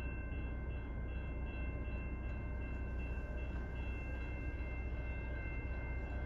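Locomotive bell ringing steadily, struck about twice a second, over a low steady rumble from the approaching diesel freight train.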